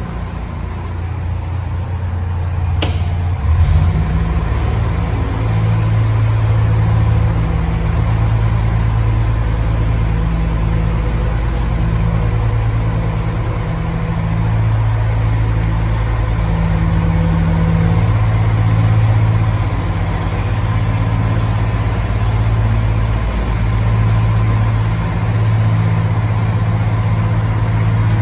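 Narrowboat's diesel engine running steadily inside a brick canal tunnel, its low throb picking up and getting louder about three and a half seconds in.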